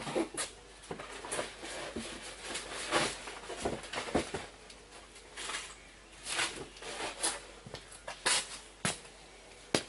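Irregular light knocks, clicks and rustles from a person moving about and handling things out of view in a small garage, with no steady machine sound.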